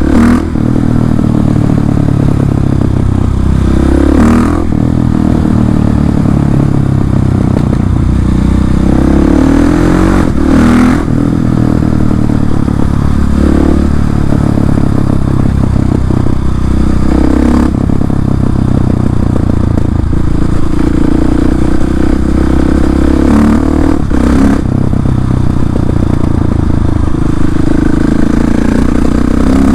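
KTM 690 SMC R's single-cylinder engine running loud through an Arrow exhaust with the dB-killer removed, its pitch rising and falling with the throttle while riding. A few short, sharp bursts stand out, about every six or seven seconds.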